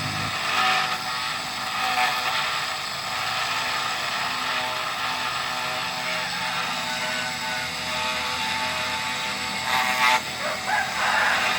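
Mini CNC engraving machine running, a steady mechanical whine made of several held tones over a hiss, with a brief louder noise about ten seconds in.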